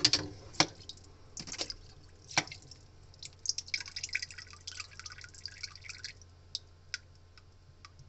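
Water dripping from a wire-mesh strainer back into a top-loading washing machine tub full of water: single drips about a second apart, a denser spell of trickling and splashing in the middle, then a few last drips. A steady low hum sits underneath.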